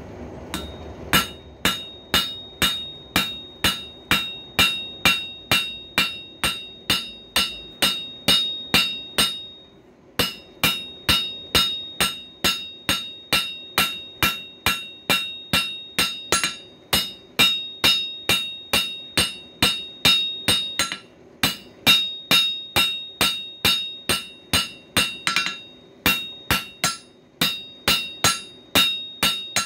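Hand hammer striking hot coil-spring steel on an anvil, about two blows a second with a bright ringing after each, drawing down the screwdriver shank. The hammering stops briefly three times.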